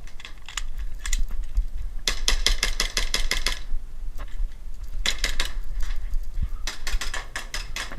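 Airsoft guns firing in rapid bursts: a long string of about a dozen shots a couple of seconds in, then two shorter bursts, with a few single shots before.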